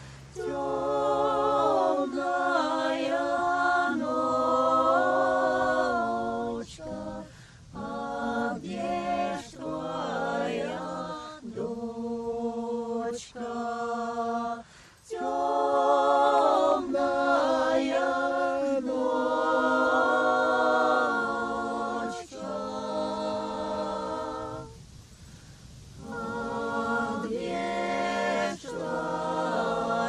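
Folk ensemble singing a song in several-part harmony, phrase after phrase, with a short break between lines about 25 seconds in.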